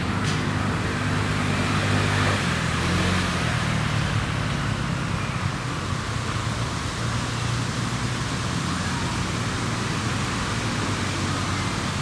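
Steady road traffic noise with a low engine hum.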